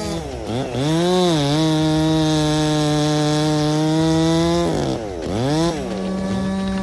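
Two-stroke chainsaw running at full throttle as it cuts through a large tree trunk, the engine note held high and steady, easing off and revving back up a few times.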